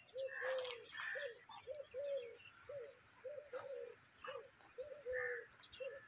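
Doves cooing: a quick run of short, soft, arched notes, two or three a second and sometimes overlapping, with higher bird chirps mixed in.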